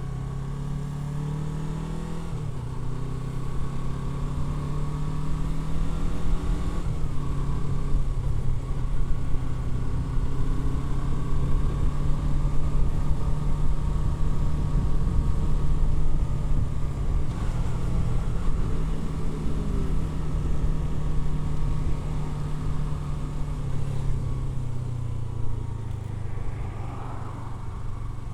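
Yamaha R3's parallel-twin engine under way, revving up and shifting up twice in the first seven seconds, then running at a steady speed before easing off near the end.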